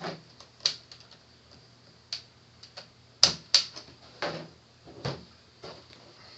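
Irregular plastic clicks and knocks from handling a Compaq Presario CQ57 laptop while its battery latches are slid and the battery is taken out. The two loudest clicks come close together about three seconds in.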